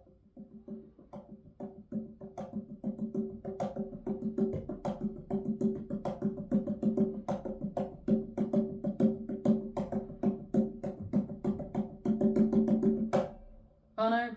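Recorded music played from a vinyl record through loudspeakers in a small room: an instrumental intro with a quick, even rhythm of short percussive notes over sustained low tones, fading in over the first few seconds. After a brief drop near the end, a singer's voice comes in.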